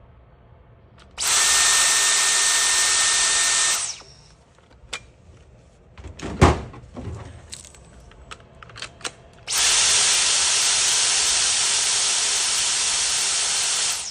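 Dyson cordless vacuum motor run on battery power in two bursts, of about two and a half and four and a half seconds, each starting and cutting off abruptly, as a test that the battery works. Between the runs, clicks and a single loud thump of the machine being handled.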